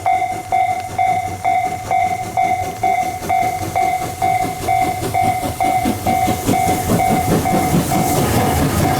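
Japanese level-crossing bell ringing steadily at just under two strokes a second. Under it, the C11 steam locomotive approaches: its exhaust beats and wheel clatter grow louder over the last few seconds, with a hiss near the end.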